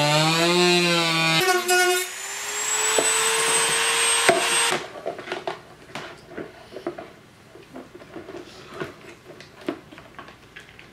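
Small high-speed rotary tool cutting into the side of a plastic battery box: a loud motor whine that wavers and drops in pitch under load, then runs on steadier and slightly rising with a cutting hiss before it stops suddenly about four and a half seconds in. Light clicks and taps follow as the rocker-switch panel is handled and fitted.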